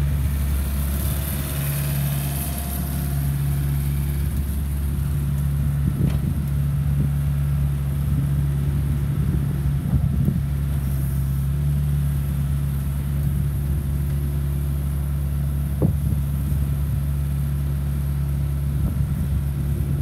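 2008 Doosan DX55 midi excavator's diesel engine running steadily while the machine slews and works its arm, with a few brief knocks along the way.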